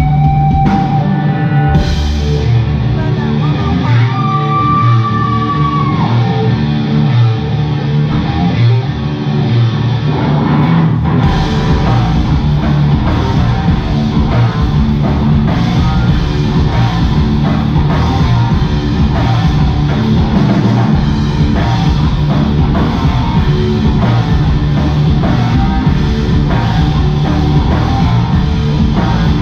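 Live rock band playing with electric guitars and drums, heavy and loud. The sound thickens about eleven seconds in as the low end fills out.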